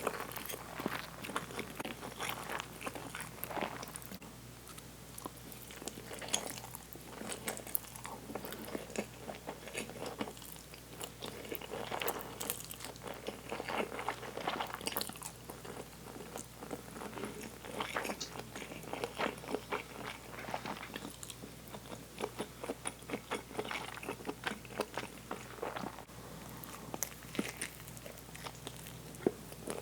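Close-miked eating of Mi Goreng fried noodles: chewing and biting, heard as a steady run of small irregular mouth clicks.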